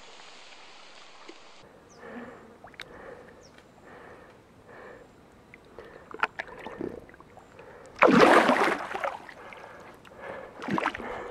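A Murray cod sloshing in shallow water while held by the jaw, then released. Late on, one loud splash lasting about a second as the fish kicks free, and a smaller splash shortly after.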